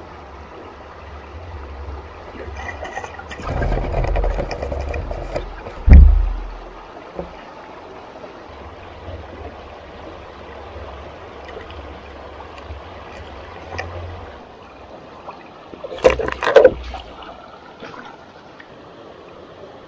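Mountain stream water rushing steadily with a low rumble, broken by a loud heavy thump about six seconds in and a short burst of sharp knocks and splashing near the end.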